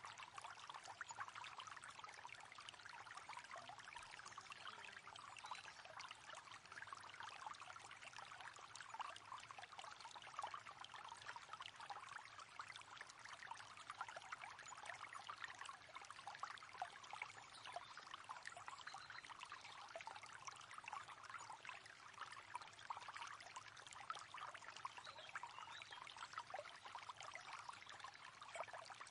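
River water flowing steadily, a faint continuous babbling and trickling.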